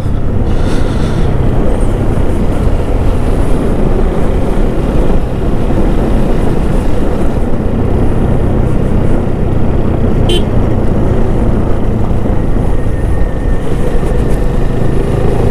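Motorcycle riding on a mountain road: a steady, loud rush of wind over the microphone mixed with the engine running. A single brief sharp click cuts through about ten seconds in.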